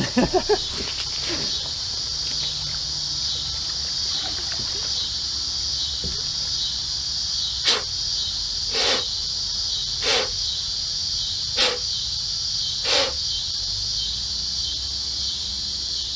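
Steady high-pitched drone of an insect chorus in summer woods. About halfway through, five short sounds come roughly a second and a half apart.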